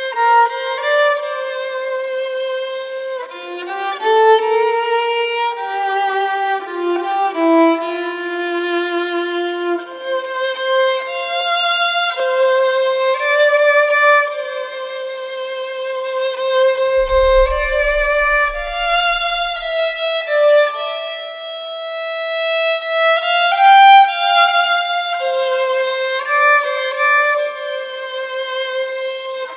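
Violin playing a slow melody of long held notes, one line at a time. A brief deep rumble sounds underneath just past the middle.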